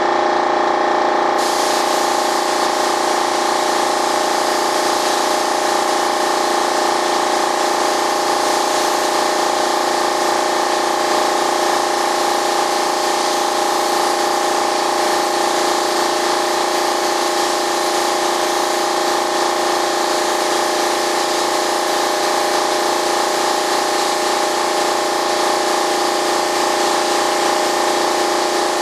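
Air-fed gravity-feed spray gun hissing steadily as it sprays paint onto the model's fuselage, with the hiss coming up about a second in. Underneath runs a steady machine hum with several fixed tones.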